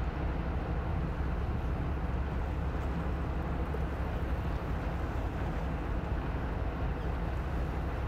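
Inland cargo vessels' diesel engines giving a steady low drone as they pass on the river, over a steady rushing hiss.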